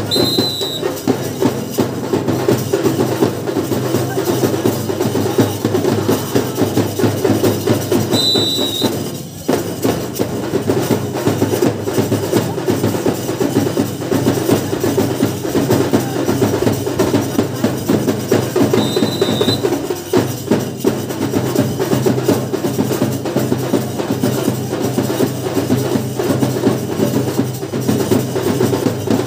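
Loud, steady rhythmic drumming with sharp clacking percussion, played as accompaniment to lathi khela stick fighting. A brief high tone cuts in three times.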